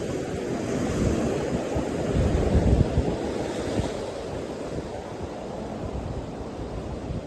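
Sea surf washing steadily, with wind gusting on the microphone; it swells louder about two to three seconds in, then eases.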